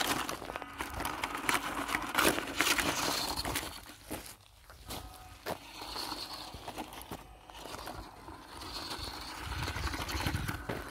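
WPL D12 1/10-scale RC kei truck driving over loose gravel and dirt, its tyres crunching and crackling on the stones, with a quieter stretch about four seconds in.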